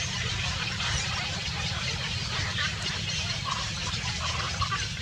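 Domestic fowl giving a few short calls in the second half, over a steady low rumble.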